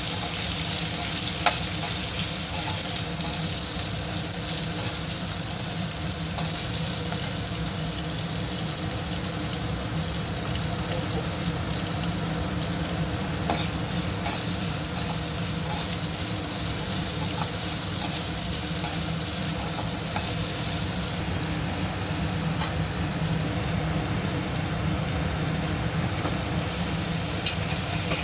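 Chopped onion frying in hot oil with a tempering of peanuts, chillies and curry leaves: a steady sizzle, with a few light clicks from stirring.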